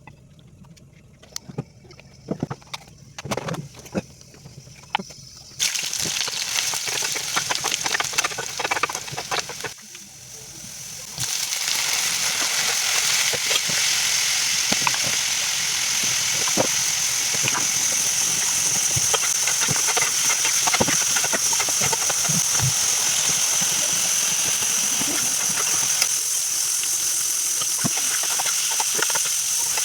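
Kitchen cooking sounds: a few knocks and clicks of utensils at first, then, about eleven seconds in, a steady sizzle with dense crackling as the vegetables fry in hot oil in a pan.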